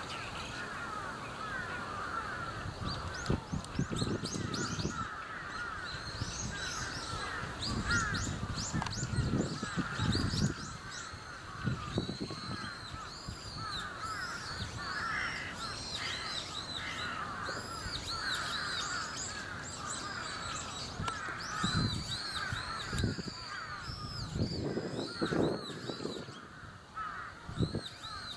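A chorus of many birds calling over one another, with higher repeated chirps above, and a few brief low rumbles.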